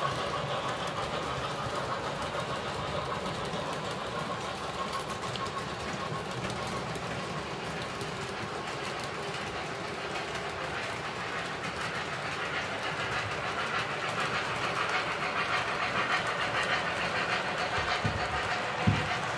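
O gauge model freight train rolling past on three-rail track: a steady clatter of the cars' wheels over the track, growing louder over the last several seconds as the steam locomotive approaches. A couple of short knocks come near the end.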